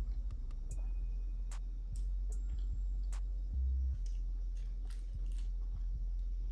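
A woman chewing a mouthful of burger with her mouth closed: faint, irregular soft clicks and smacks, over a steady low hum.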